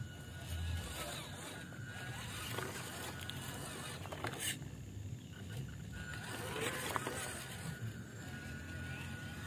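Electric motor and geared drivetrain of a WPL C54 RC crawler whining steadily as the truck drives over dirt and rocks, with a sharp click about halfway through.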